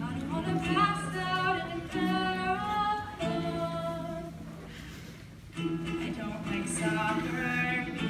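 Live acoustic song: female voices singing over a strummed ukulele, with a short lull between phrases about four seconds in before the singing and playing pick up again.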